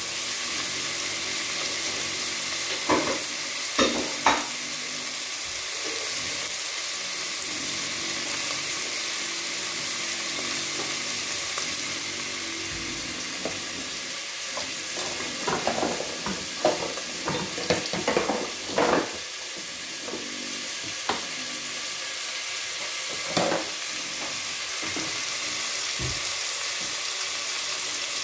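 Chunks of beef searing in hot oil in a pot, sizzling as a steady hiss with sharp pops of spitting oil now and then, most of them bunched around the middle.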